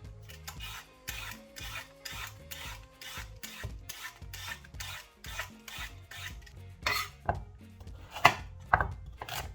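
A carrot being peeled: quick rasping scrapes, about three strokes a second, followed near the end by a few louder knocks.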